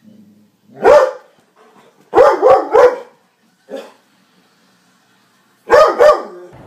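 Doberman barking loudly in short, separate barks: one, then three in quick succession, a fainter single bark, and two more near the end.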